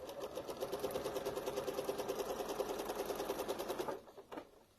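Sewing machine stitching at a fast, even rate, doing free-motion ruler work, then stopping abruptly about four seconds in.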